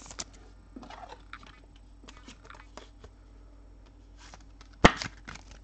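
Light rustling and clicking of trading cards and card sleeves being handled at a table, with one sharp tap or knock a little before the end.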